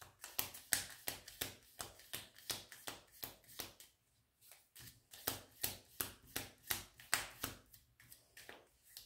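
A Lenormand deck being shuffled by hand, cards slapping against each other in a steady run of soft clicks, about three a second, with a short pause about four seconds in.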